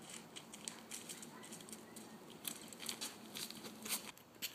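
Footsteps of several people walking over brick pavers littered with dry leaves, with irregular faint rustling and scuffing underfoot.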